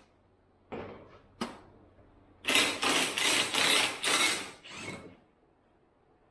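Cordless impact driver run in a few short pulses for about two seconds, with another brief burst just after, while removing bolts from a UTV's front end; a couple of light knocks of metal parts come before it.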